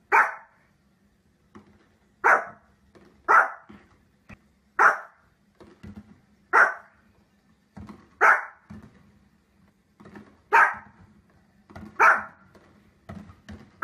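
A small fluffy puppy barking: single sharp barks about every one to two seconds, eight in all.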